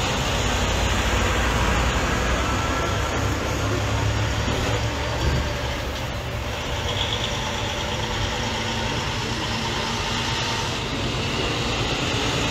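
Diesel semi tractors pulling race-team hauler trailers roll past at low speed, their engines giving a steady low rumble that is strongest in the first half.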